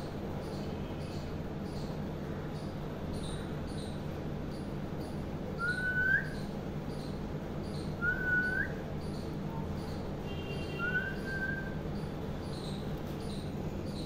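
Alexandrine parakeet giving three short rising whistles, each about half a second long, a couple of seconds apart.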